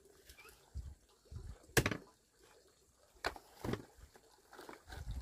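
A few scattered knocks and dull thumps, the sharpest a little under two seconds in.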